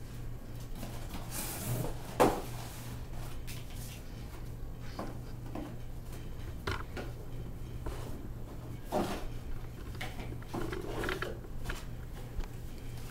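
Toy set packaging being handled and opened: scattered rustles and knocks, with a sharp knock about two seconds in.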